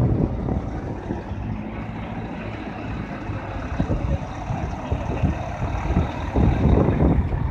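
Volvo FH 500 tractor unit's diesel engine running as the truck drives slowly past, getting louder near the end as it comes close.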